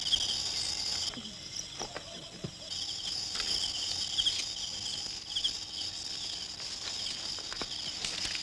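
Crickets and other night insects chirping in a steady high trill with pulsing chirps, with a few faint rustles in the undergrowth.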